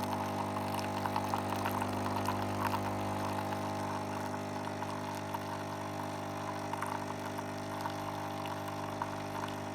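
Capsule coffee machine's pump running steadily while brewing a large cup: an even hum with a light crackle over it.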